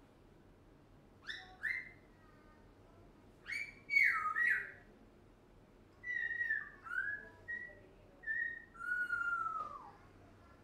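African grey parrot whistling and chirping: a few sharp chirps, then a string of whistled notes that slide up and down, ending in a longer falling whistle.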